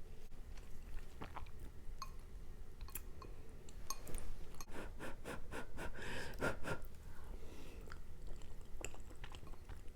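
Close-miked chewing of soft MRE cheese tortellini, with wet mouth clicks scattered throughout and a denser run of chewing about five to seven seconds in.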